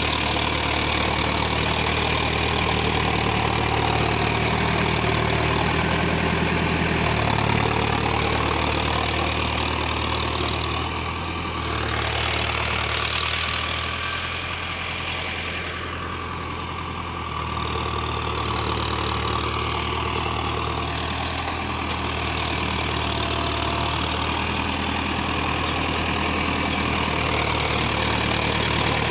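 Tractor's diesel engine idling steadily. Partway through it eases a little for several seconds, then settles back to the same idle.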